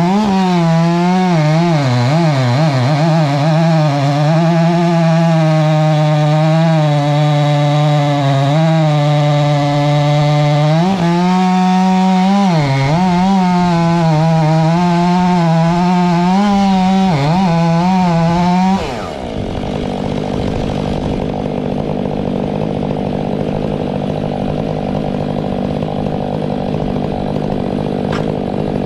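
500i chainsaw running at high revs while cutting into a tree trunk, its pitch dipping and recovering as the bar loads in the cut. About 19 s in the sound changes abruptly to a rougher, noisier saw sound.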